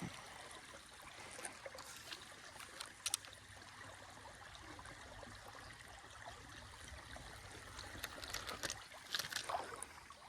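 Creek water running steadily over a small spillway, a soft even rush, with a few scattered clicks that come more often near the end.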